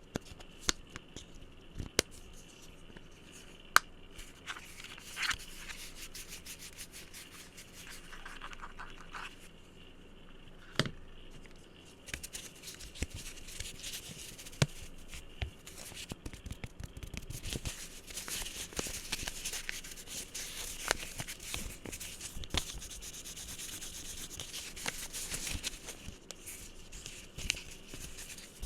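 Fingers tapping and scratching on objects close to the microphone: scattered sharp taps in the first half, then dense, fast scratching and rubbing through the second half.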